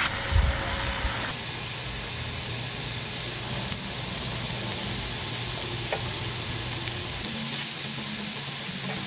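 Marinated chicken halves sizzling on a hot ridged grill pan, a steady hiss of fat and juices frying on the plate. A brief low thump comes just under half a second in.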